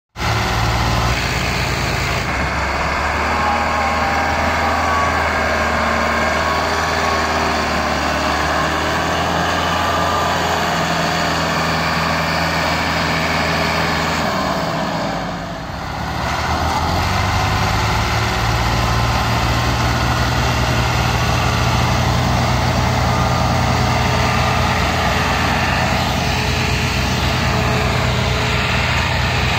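Tractor diesel engines running hard and steadily while pulling a heavily loaded sugarcane trolley. The sound drops away briefly about halfway through, then picks up again just as strongly.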